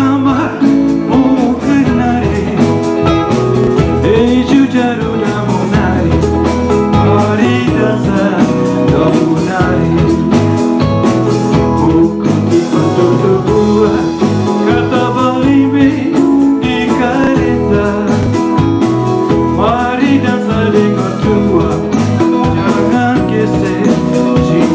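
Band music with a steady beat: an instrumental passage with a bending lead melody over the rhythm and no sung words.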